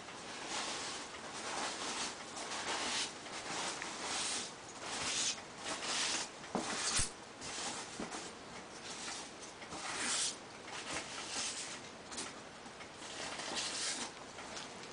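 Cardboard shipping box being worked open by hand: irregular scratching and rustling of cardboard and packing tape, with one sharp click about seven seconds in.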